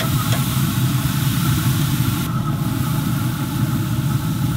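Steady low mechanical hum and rumble of a running motor, unchanging throughout, with a light click of metal tongs on the grill grate just after the start.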